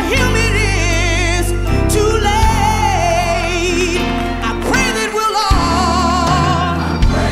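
Gospel song: a voice singing held, wavering notes over a steady bass accompaniment.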